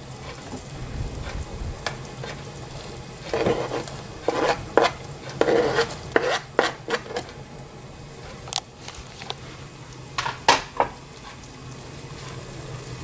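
A knife scraping chopped green onion off a plastic cutting board into a steel pot of boiling soup, then a metal spoon stirring and clinking against the pot, over the steady bubbling of the boil. The scrapes and clinks come in short separate strokes, bunched in the first half and again near the end.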